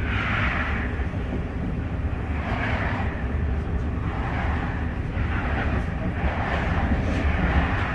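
Running noise inside an ETR 104 electric regional train at speed: a steady low rumble from the wheels on the rails, with a hiss that swells and fades several times.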